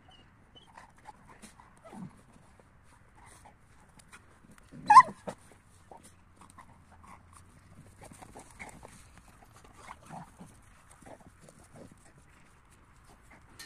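Two dogs, a kuvasz and a brindle pup, play-fighting, sped up to double speed: scattered short dog vocalisations and scuffles, with one loud sharp bark or yelp about five seconds in.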